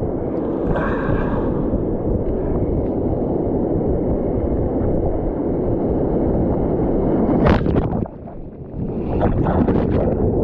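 Surf and wind rushing over the microphone. About seven and a half seconds in comes one loud splash, followed by a brief muffled dip and then broken splashing: a sit-on kayak being overturned by a wave.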